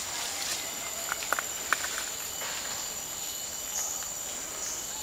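Steady high-pitched drone of forest insects, with a few short clicks about a second and a half in.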